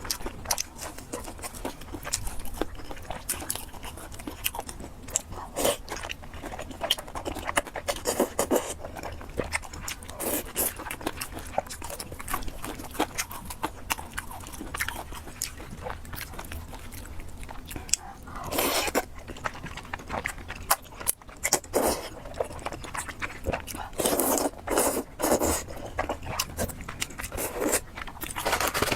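Close-miked eating sounds: noodles and pork being chewed and bitten, with wet smacking, slurping and crunchy clicks, and a few louder bursts of slurping near the end.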